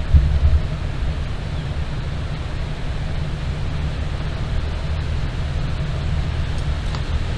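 Wind buffeting the microphone: a steady low rumble, with a stronger gust just after the start.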